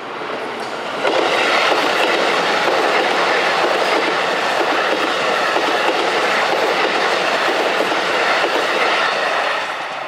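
Shin-Keisei 8900 series electric train passing close by: a steady rush of wheels on rail that comes in suddenly about a second in and eases off near the end.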